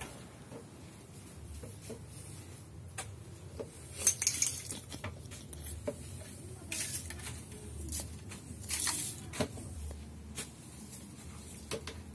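A broom sweeping a tiled floor in a few short strokes, with scattered knocks and clinks of small objects being moved.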